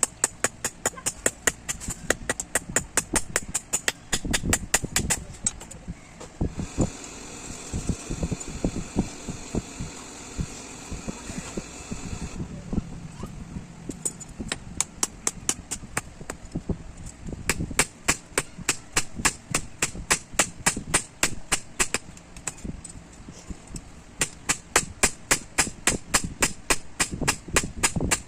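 Rapid, regular hammer blows on steel at an anvil, about four a second, forging a blade. For several seconds in the middle a steady high hiss runs under fewer, softer blows.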